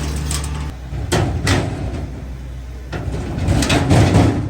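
A steady low hum cuts off under a second in, followed by a few sharp knocks and then a louder rumbling, clattering stretch near the end.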